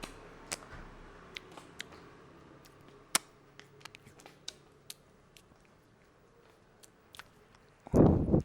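Hands massaging a head: scattered sharp clicks and crackles of fingers working through the hair and over the scalp. Near the end comes a single much louder burst lasting about half a second.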